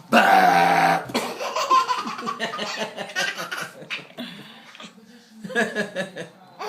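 A man's loud, drawn-out burp at a steady low pitch, lasting about a second, followed by laughter.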